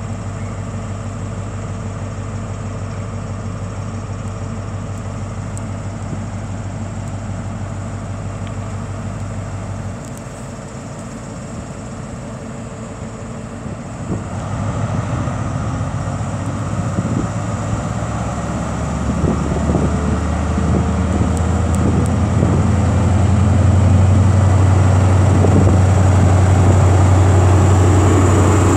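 Class 43 HST power car's MTU diesel engine idling steadily, then opening up about fourteen seconds in as the train departs. The sound grows louder as the power car draws past, with a faint rising whine.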